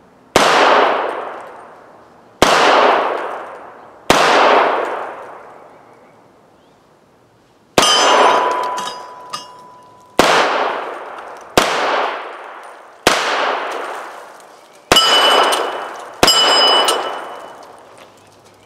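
Nine shots from a 300 Blackout rifle, fired one at a time at an uneven pace, each a sharp crack with a long echoing tail. Three of the shots are followed by the ringing clang of a hit steel plate target.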